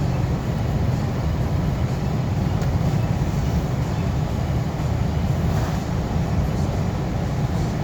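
Steady low road and engine rumble inside the cabin of a moving vehicle.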